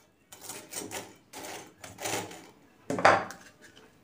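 A few separate light knocks and clatters from handling a kitchen mixer-grinder jar and its lid. The loudest bump comes about three seconds in.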